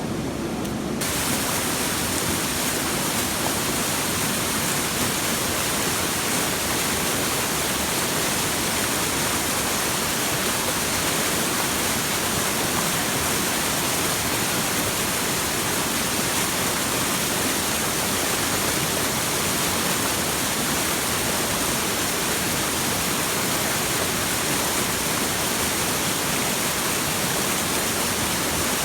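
Steady rushing water, an even unbroken hiss spread from low to high, setting in fully about a second in.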